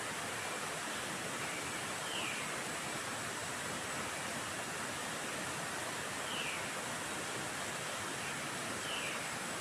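Early-morning forest ambience: a steady rushing hiss with a short, high, downward-sliding call heard three times, a few seconds apart.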